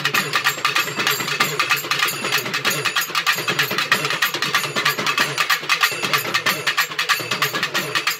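Urumi melam drum ensemble playing: several stick-struck drums beating a fast, steady rhythm in rapid, evenly spaced strokes.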